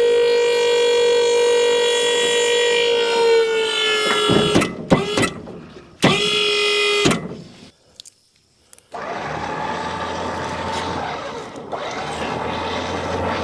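An electric motor whining steadily, its pitch sagging slightly as it takes load about three seconds in. It is then run in two short bursts and stops. After a brief near-silent gap a duller, steady machine noise starts.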